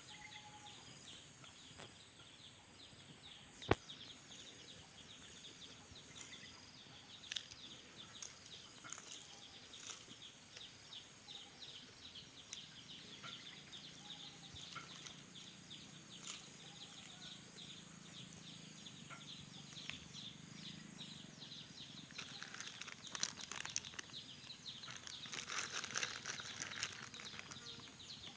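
Faint outdoor ambience with many small high chirps and ticks, a steady pulsing high trill and occasional short bird calls; a single sharp click about four seconds in.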